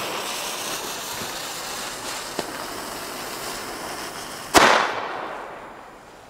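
A lit firecracker fuse hissing for about four and a half seconds, then one loud firecracker bang that rings out and fades over about a second and a half.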